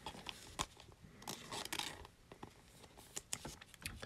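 Trading card being handled and slid into a clear plastic sleeve: soft scraping and rustling of card against plastic, loudest about a second in, with a few light clicks.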